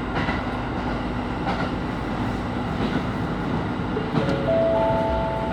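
KiHa 25 diesel railcar running, a steady hum and rumble with faint wheel clicks over rail joints about every second and a bit. About four seconds in, the onboard announcement chime sounds, four notes stepping upward, signalling the automated announcement of the next stop.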